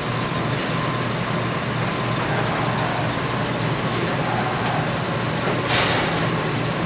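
A steady low machine-like hum with a hiss over it, and one short sharp noise about five and a half seconds in.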